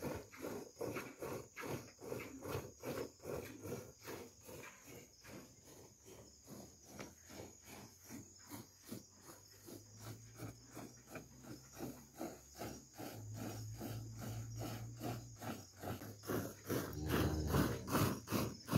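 Cow being milked by hand: rhythmic squirts of milk hitting the container, about four a second.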